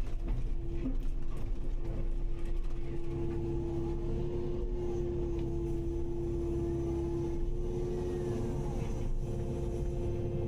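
Kubota KX080-5 excavator's diesel engine running steadily, a constant drone with a low rumble.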